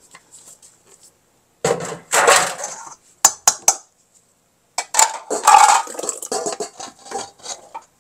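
Kitchen dishes and utensils clattering and scraping: a rough scrape about two seconds in, a few sharp clinks, then more clatter through the second half.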